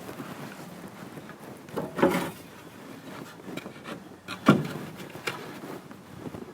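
Scattered knocks and scraping of a plywood sheet being handled against a wall, with one sharp knock about four and a half seconds in.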